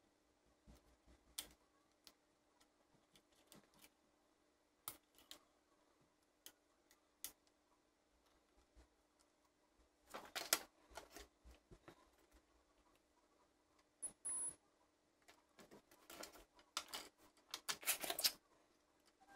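Sparse light clicks and crackles of a thin plastic membrane circuit sheet being handled and flexed against a plastic toy housing, bunching into denser crackling about ten seconds in and again near the end. A brief high-pitched tone sounds about two-thirds of the way through.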